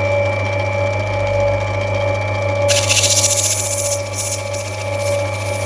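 Opal-cutting grinding wheel motor running with a steady hum; about three seconds in, an opal is pressed to the spinning wheel and a loud grinding hiss starts, as the stone is rubbed back.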